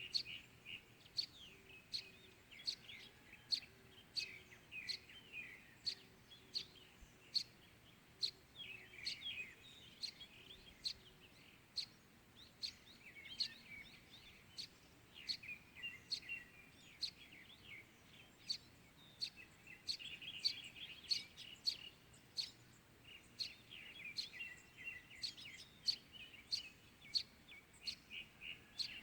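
Small birds chirping in a morning chorus: one sharp chirp repeats about once or twice a second throughout, over busy twittering from other birds.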